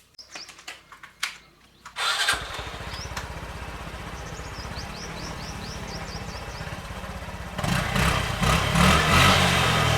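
Honda RSX 150cc motorcycle's single-cylinder engine starting about two seconds in, then idling steadily, and revved louder for the last couple of seconds. Birds chirp in the background.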